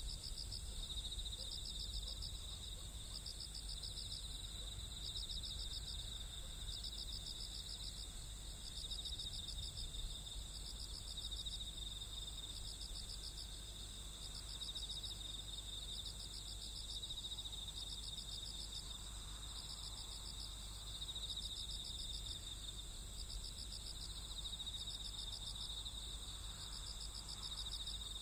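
Chorus of crickets and other night insects: one gives short pulsed trills repeated every second or two over a steady high-pitched ringing from the rest, with a low steady rumble beneath.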